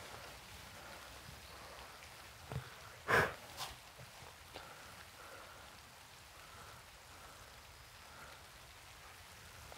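Light rain falling, a faint steady patter, with a single brief louder knock or rustle about three seconds in.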